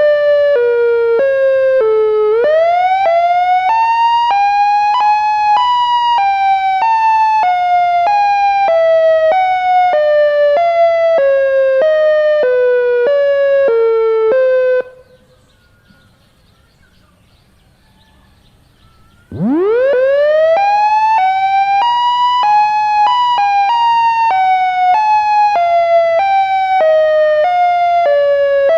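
Synthesized Federal Signal siren sounding a wail: the pitch climbs and then sinks slowly in small, audible steps. About halfway through it cuts out suddenly. A few seconds later it winds back up sharply from a low pitch and begins falling again.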